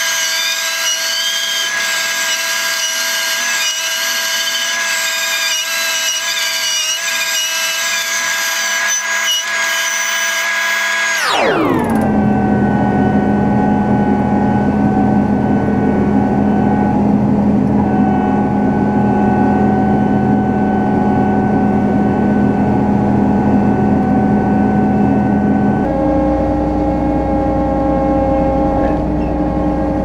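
A John Deere 9500 combine's engine and machinery running steadily. For the first eleven seconds or so it is a high-pitched, whining version of the sound. It then drops sharply in pitch to a steady, deeper engine drone, and the sound shifts and deepens again near the end.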